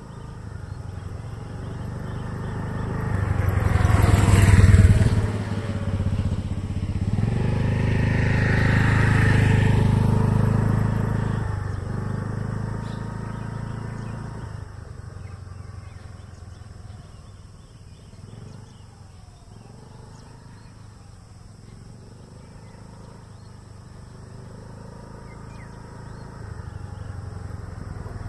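Motor scooter engine riding past, loud twice in the first ten seconds or so with a rising whine on the second pass. It then fades into the distance and grows louder again near the end as the scooter comes back.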